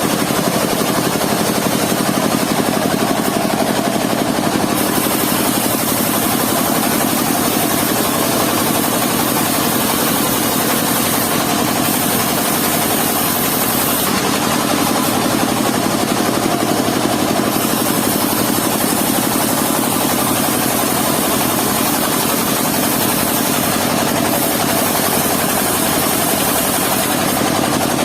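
Engine of a mobile circular sawmill running steadily under load, with a high hiss that swells and fades every few seconds as the saw works the timber.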